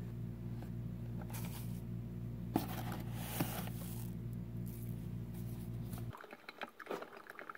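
Ground coffee poured from its bag into a paper filter in a drip coffee maker's basket: the bag crinkles and the grounds rustle and patter into the filter in short spells. A steady low hum runs beneath and cuts off about six seconds in.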